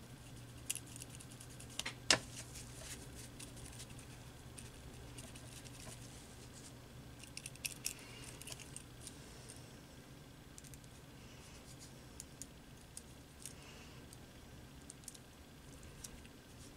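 Light scattered clicks and taps of fingers and fingernails handling a small paper craft piece while dabbing paint onto it, with one sharper click about two seconds in, over a faint steady low hum.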